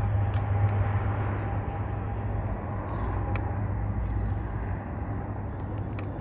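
Jet airliner engines rumbling with a steady whine, the sound fading gradually; the whine dies out about halfway through.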